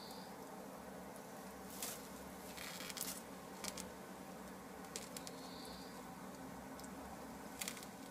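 Dry straw nest bedding crackling and rustling in a few short bursts as a Sussex hen shifts on her nest and picks at the straw, over a steady low hiss. A faint, short high chirp comes about halfway through.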